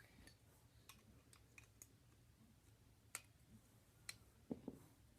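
Faint, scattered clicks of plastic Lego pieces being handled and pressed together, spaced about a second apart, with a couple of softer knocks near the end.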